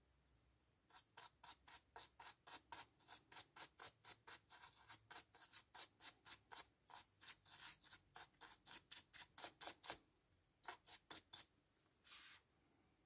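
Rapid short rubbing strokes, about four a second for some nine seconds, then a few more after a brief pause and one longer stroke near the end.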